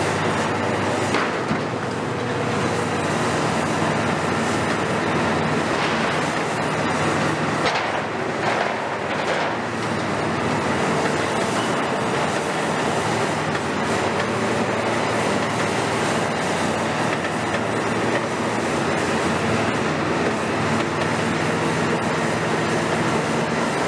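A KMC 400 long-front demolition excavator's diesel engine and hydraulics run steadily under load while its demolition shear tears and drags sheet-metal roof cladding, with metallic clattering and scraping and a few sharper crashes of metal.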